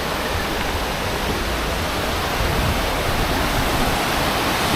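Waterfall: water rushing steadily over rock, close by, a little louder in the second half.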